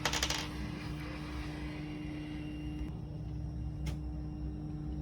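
Hot air rework station blowing steadily, with a quick rattle of small metallic clicks at the start and a single click about four seconds in.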